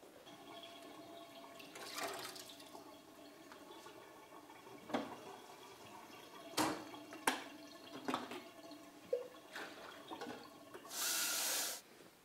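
Water running at a kitchen sink, with several sharp knocks of cupboard doors and crockery, and a short loud hiss near the end.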